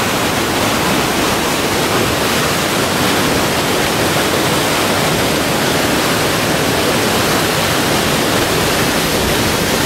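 River whitewater rushing steadily over rocks in a rapid, a loud, even rush of water.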